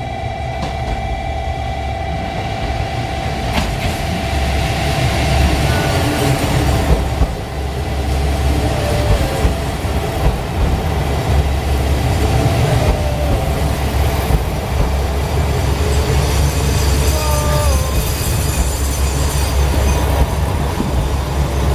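Red express diesel railcar pulling into the platform and slowing to a stop, its engine and running gear giving a heavy low rumble. There are several brief squeals from the wheels and brakes as it slows.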